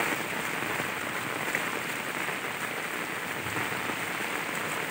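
Steady rain falling on floodwater and wet ground, an even hiss without a break.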